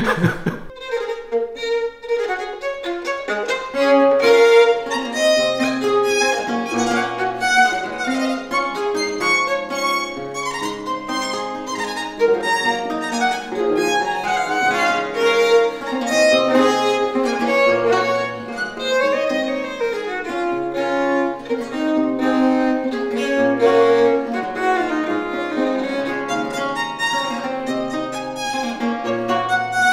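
Violin and lute playing a duet: the violin bows a moving melody over plucked lute chords and low bass notes, starting about a second in.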